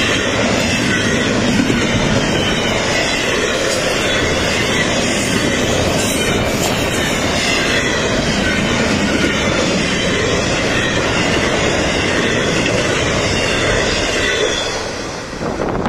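A train rolling past at close range, its wheels running on the rails in a loud, steady noise that falls away near the end.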